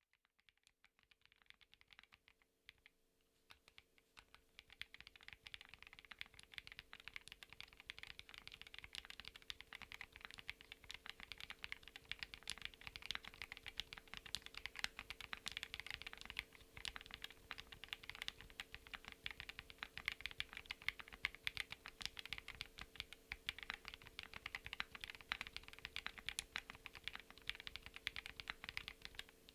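Typing on a Chilkey PAW65 gasket-mount mechanical keyboard with HAIMU Deep Ruby linear switches, FR4 plate and PBT keycaps: a fast, continuous patter of keystrokes. It starts with a few sparse, faint keypresses and becomes dense and louder at about four seconds in.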